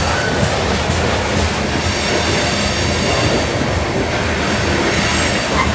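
Coal hopper cars of a long freight train rolling past, a steady loud rumble and clatter of steel wheels on the rails.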